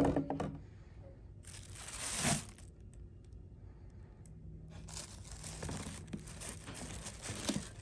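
A cardboard shoebox lid knocking as it comes off, then the black wrapping sheets inside the box crinkling and rustling as a sneaker is handled in them: a short swell about two seconds in and a longer spell from about five seconds to near the end.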